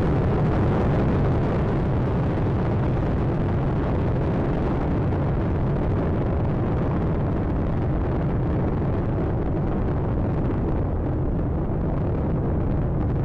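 Space Shuttle Atlantis's solid rocket boosters and three main engines running during ascent: a steady, deep, continuous noise of rocket exhaust.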